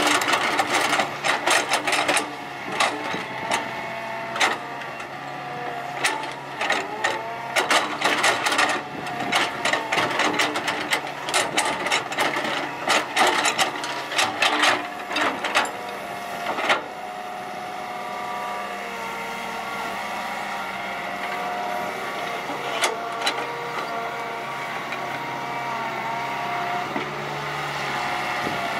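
Hitachi EX120 hydraulic excavator digging earth: its engine and hydraulics run with a steady whine under frequent sharp clanks and knocks. About halfway through, the clanking stops and only the steady engine and hydraulic whine carries on.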